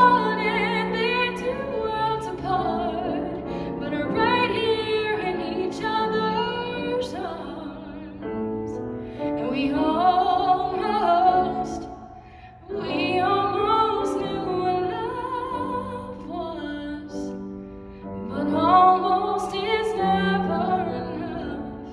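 A solo female voice singing with her own grand piano accompaniment, with a brief pause in the phrase about halfway through.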